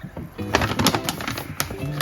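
Background music playing, with several sharp clicks through the middle.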